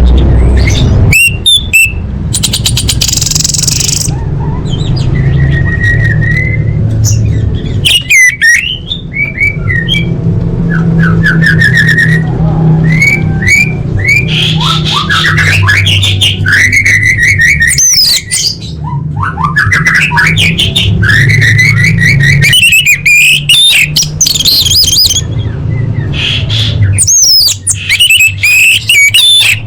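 Orange-headed thrush singing a long, varied song of whistles, trills and rapid rattling note series, in phrases broken by short pauses, over a steady low hum.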